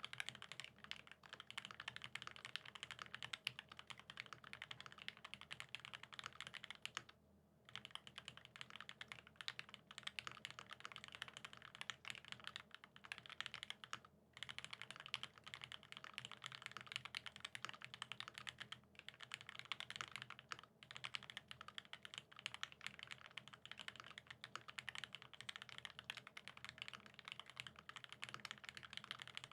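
Continuous fast typing on a Satisfaction75 mechanical keyboard with lubed vintage Cherry Top SP Star switches on a top-mounted brass plate and GMK keycaps, a dense run of key clacks. A short break in the typing comes about seven seconds in.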